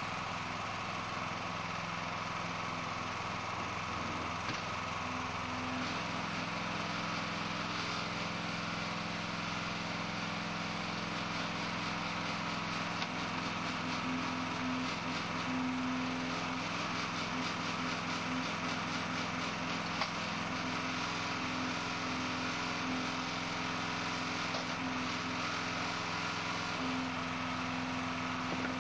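Engine of a burial vault handler running steadily; its note shifts about six seconds in and again near the end, as if under changing load.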